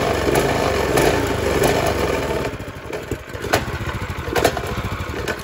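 Harbor Freight Predator 212cc single-cylinder four-stroke engine running on its own, its freshly cleaned carburetor now feeding fuel without starting fluid. It runs steadily, then drops lower about halfway through, with a couple of sharp clicks near the end.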